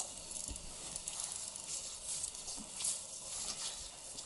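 Footsteps and legs brushing through tall grass and ferns, an irregular rustling and crackling of leaves and stems.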